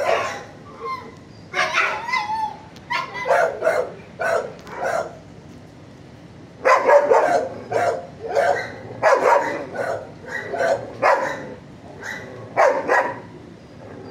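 Dogs barking in a shelter kennel: quick runs of loud barks with a few yips, and a short lull about five seconds in.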